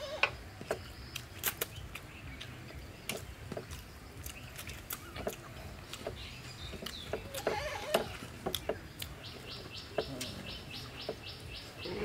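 Wet chewing and mouth-smacking clicks from a person eating rice by hand. From about nine seconds in, a bird gives a run of about a dozen even high chirps, roughly four a second, for nearly three seconds.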